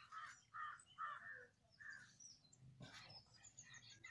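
Crows cawing faintly in the background, a run of short caws in the first two seconds, followed by a brief scrape about three seconds in.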